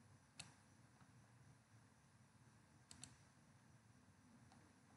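Near silence broken by a few faint computer mouse clicks: one about half a second in, a quick double click near three seconds, and a fainter one near the end.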